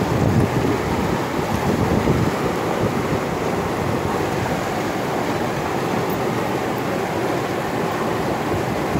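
Steady rush of river water flowing over rocks in the shallows.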